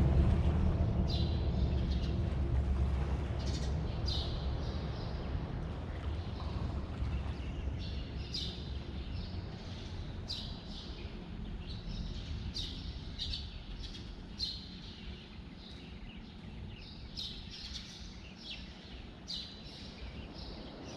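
Small birds chirping, with short, high calls coming in quick clusters. A low rumble fades away over the first several seconds.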